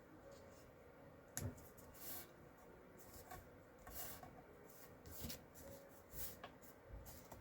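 Paper and cardstock being handled and pressed down on a desk: a few short rustles and swishes with light taps, the sharpest tap about a second and a half in.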